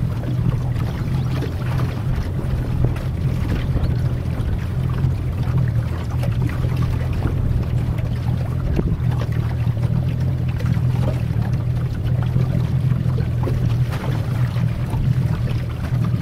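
Motorboat engine running at steady cruising speed, a constant low drone, with water rushing and splashing along the hull.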